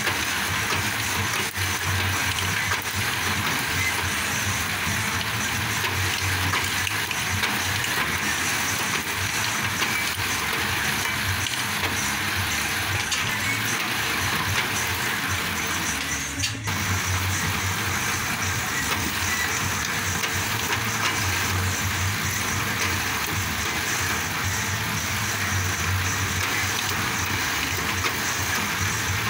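A bamboo planing machine for satay skewers running steadily, a continuous mechanical drone, with a brief break about sixteen and a half seconds in.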